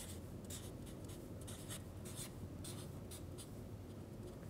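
Felt-tip marker writing letters on flip-chart paper: a quick run of short, faint scratchy strokes.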